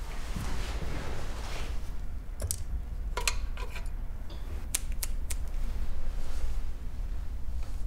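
Small metal and glass items clinking and clicking as they are handled inside a lockable metal box: a handful of sharp clinks in the middle, a few with a short metallic ring, over a low steady hum.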